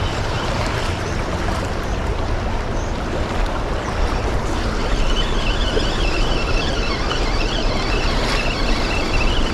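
Steady wind noise buffeting the microphone over moving water along the shore, with a constant low rumble. About halfway through, a faint wavering high whistle joins it.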